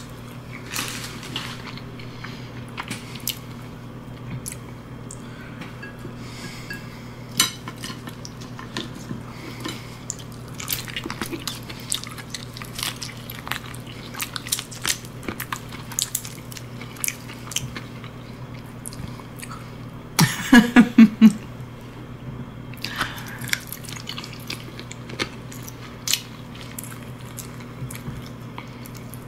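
Close-miked eating of crab and chicken feet: chewing and biting with many sharp clicks and small cracks. A low steady hum runs underneath. About twenty seconds in comes the loudest moment, a brief voiced sound from the eater in about five quick pulses.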